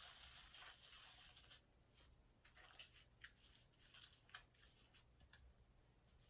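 Faint wet squishing of a soapy sponge being squeezed full of foaming hand-soap lather for about a second and a half, then scattered faint crackling ticks as the foam is worked between the hands.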